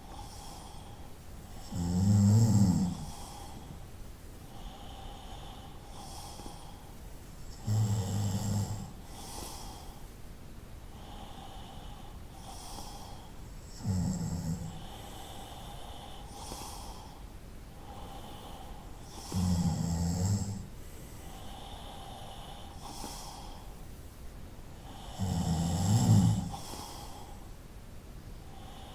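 A person snoring: five low snores about six seconds apart, each lasting about a second, with softer breathing sounds between them.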